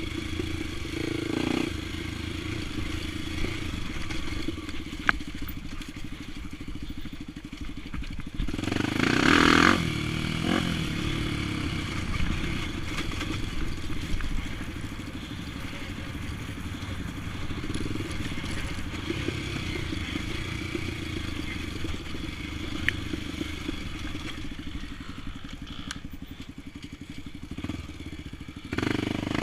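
Single-cylinder four-stroke engine of a 2003 Honda XR 250 Tornado trail bike, bored to 280cc and fitted with an aftermarket ProTork exhaust, running steadily while riding a dirt trail. There is a surge of throttle about nine seconds in.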